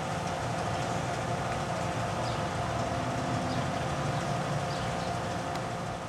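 A steady mechanical hum with several fixed tones under it, and faint short high chirps now and then.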